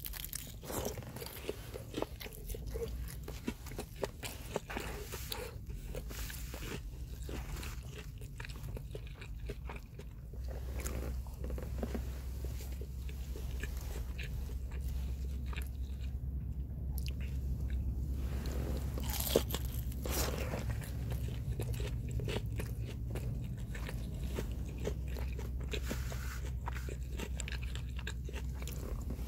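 Eating crispy karaage (deep-fried chicken) and rice close to the microphone: crunching bites and chewing with small clicks throughout. A steady low hum runs underneath and gets louder about ten seconds in.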